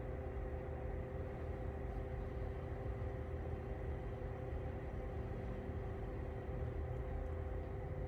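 Lasko CT32791 ceramic tower space heater running: a steady fan rush with a constant low hum of a couple of tones underneath.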